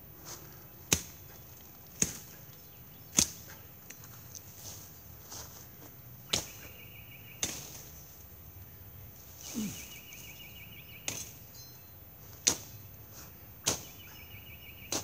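Machete chopping brush and saplings: sharp strikes about a second apart, in short runs with pauses between.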